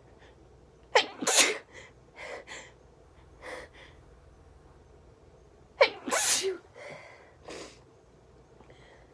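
A person sneezing twice, about five seconds apart, each sneeze a short rising voiced catch breaking into a loud burst, with shorter, quieter breaths between.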